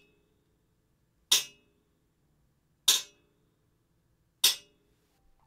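Sharp taps of a small hard ball like a marble hitting a hard floor: three evenly spaced strikes about a second and a half apart, each with a short ring. This is the upstairs-neighbour floor noise heard through the ceiling.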